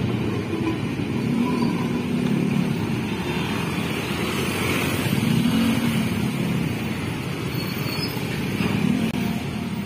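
Road traffic at a level crossing: many motorcycles and cars running and moving off across the tracks together. Engine notes rise and fall a few times over a steady traffic din.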